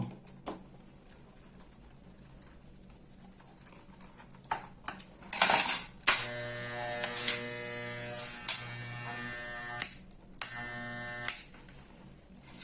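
Wahl Super Taper electric hair clipper running with a steady buzz for about four seconds, stopping, then running again briefly near the end. A few clicks and a short hiss come before it starts.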